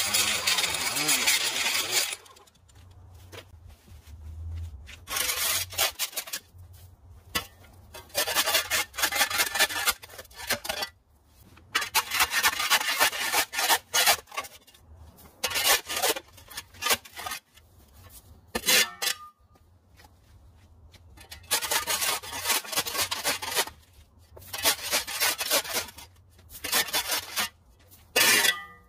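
A battery-powered stick edger cutting along a concrete sidewalk edge for about two seconds, then a flat shovel scraping dirt and grass debris along the concrete in a series of separate strokes, each one to two seconds long, with short pauses between.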